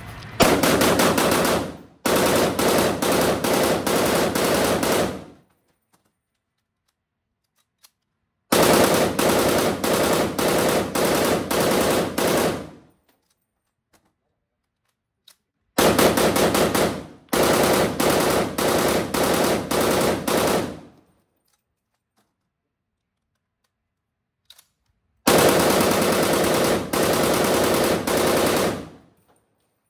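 POF CW39 rifle firing on full automatic in six long bursts, each one to four seconds long, with gaps of a few seconds between most of them.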